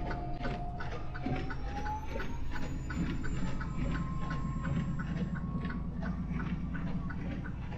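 Semi truck driving, heard from inside the cab: a steady low engine and road rumble with a whine that rises about one and a half seconds in, over an even ticking about three times a second.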